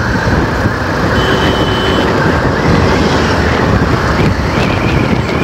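Wind buffeting the microphone on a moving motorcycle, with the bike's engine running underneath.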